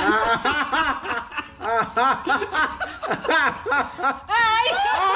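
A man and a woman laughing together in a run of short bursts that rise and fall in pitch.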